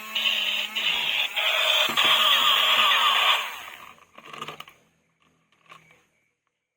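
A toy vehicle's electronic sound effect playing through its small speaker, stopping about three and a half seconds in, followed by a few faint plastic clicks.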